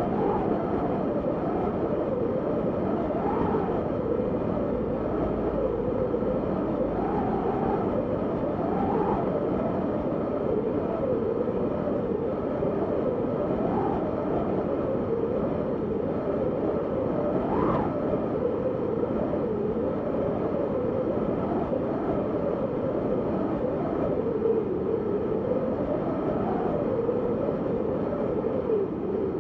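Wind blowing steadily, a dull rush with a faint howl that wavers up and down in pitch, and one brief higher gust a little past halfway.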